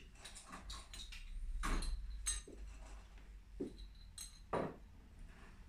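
Glass beer bottles clinking and knocking against each other as they are handled for bottling: a handful of separate short clinks, some with a brief high ring.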